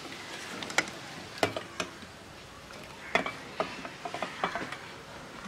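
Steel ladle stirring a stainless steel pot of boiling water and crushed whole moong, clinking sharply against the pot several times.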